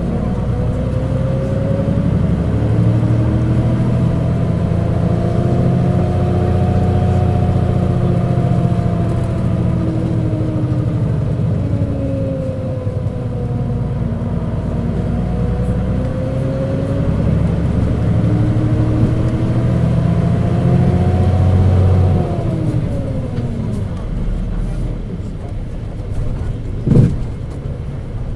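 Mitsubishi Fuso KC-MP617K city bus under way, its drive sound rising and falling in pitch twice as it pulls up and eases off, dropping away about 22 seconds in. The running sound is far from the model's normal sound, which the uploader takes for some fault or trouble. A single sharp knock near the end.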